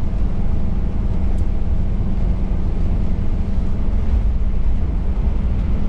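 Steady low engine rumble with an even wash of noise over it, unbroken and without change.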